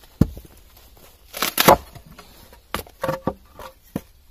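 A mallet knocks once on a froe set in a western red cedar block, then the wood splits apart with a crackling tear as the shake comes off, followed by a few lighter knocks of wood.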